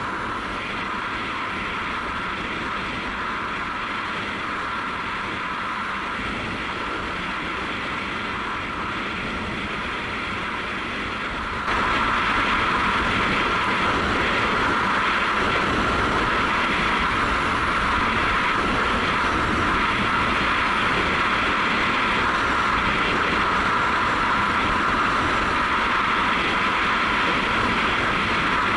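Honda CRF250L single-cylinder four-stroke engine running at steady road speed, mixed with wind rushing past a helmet-mounted action camera. The sound jumps suddenly louder about twelve seconds in and stays there.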